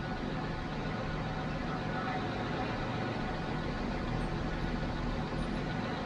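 Jaguar XJ6 Series 3's fuel-injected 4.2-litre straight-six idling steadily, on a car that suffers from a rough, uneven idle.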